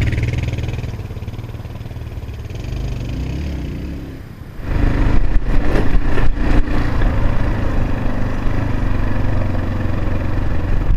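A Kawasaki KLR650's single-cylinder four-stroke engine running at low throttle, then opened up sharply about four and a half seconds in and held under load as the bike pulls through thick sand.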